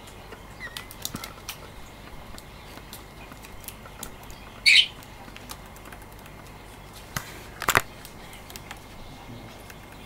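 Budgie flapping its wings as it leaves its bath dish, with light taps and clicks on the plastic and a short chirp about halfway.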